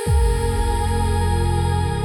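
Ethereal electronic dance music (trance/EDM house) with held synth pad chords; right at the start a deep bass comes in with a quick downward swoop and then holds under the pads.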